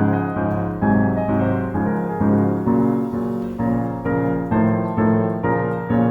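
Background piano music: a steady run of repeated chords, each struck and left to fade before the next.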